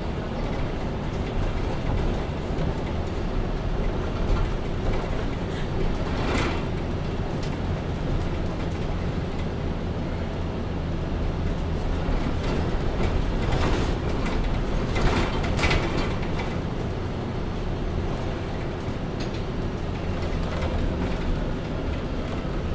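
MAN A20 Lion's City Ü city bus driving, heard from on board: a steady low engine and road drone. Two brief louder noises break in, one about six seconds in and another about fifteen seconds in.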